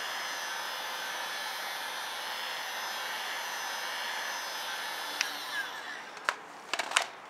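Handheld heat gun blowing steadily, its fan and air noise dropping away about six seconds in, followed by a few sharp clicks and knocks.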